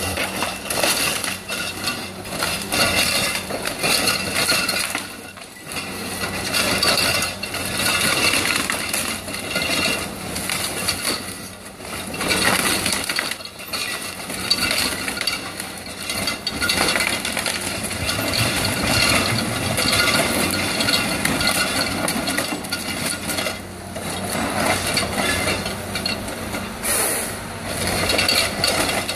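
Caterpillar 550 harvester's engine and hydraulics running steadily as its Fabtek four-roller head feeds a 32-inch spruce stem through, with a continual crunching and cracking of limbs being stripped and broken off the trunk.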